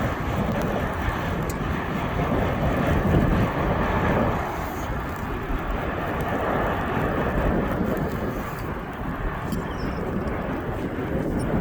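An intermodal freight train's cars rolling past in a steady rumble, with wind on the microphone.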